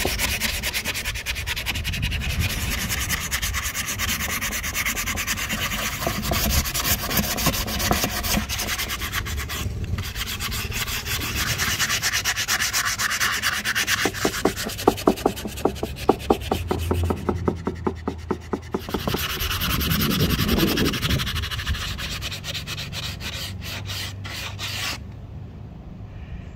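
Sandpaper on a hand-held sanding disc scraping over a hardwood axe handle in quick, repeated strokes. The strokes are most distinct in the middle, and the sanding stops shortly before the end.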